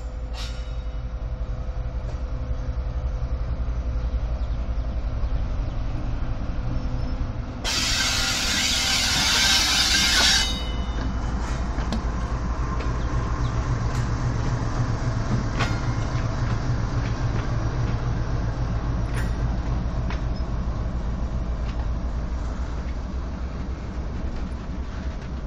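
A GEU-40 diesel-electric locomotive's engine runs with a steady low drone as the locomotive rolls slowly by, with a few scattered clicks and clanks. A loud hiss lasts about three seconds, a little before the middle.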